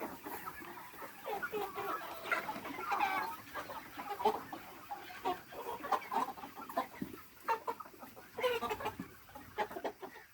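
Aseel cross chickens clucking, many short calls overlapping one another.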